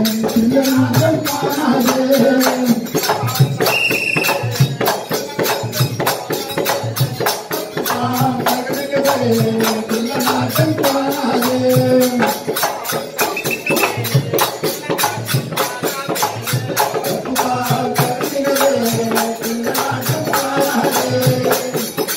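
Live folk music for Tamil street theatre: a melody in held phrases over a fast, steady percussion beat of hand drum and jingling percussion.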